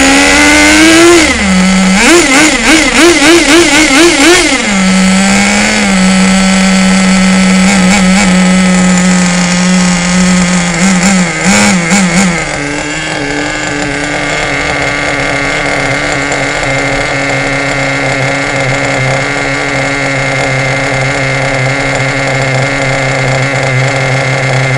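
Traxxas Nitro 4-Tec RC car's small nitro glow engine running on its first run. It is revved in a quick series of short blips a couple of seconds in and again about halfway, then drops to a lower, steady idle.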